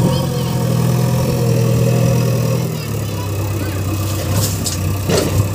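JCB 3DX backhoe loader's diesel engine running at raised revs, then settling lower about three seconds in. Near the end the front bucket tips its load of cow dung into a tractor trolley, with a few short knocks.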